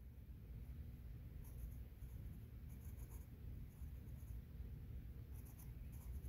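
Faint scratching of an H graphite pencil on sketchbook paper, drawing short strokes in several brief clusters, over a low steady hum.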